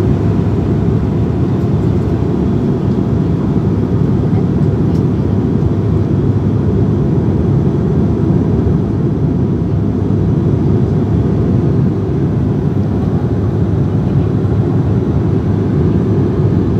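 Airliner engine and airflow noise: a steady low drone that neither rises nor falls.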